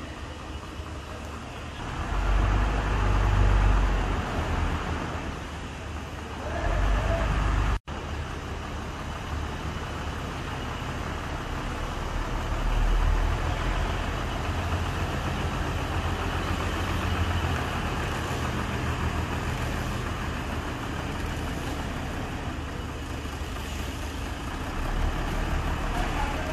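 Road vehicle on the move: steady engine and road rumble with louder swells a couple of seconds in and again around seven seconds, and a brief drop-out shortly after.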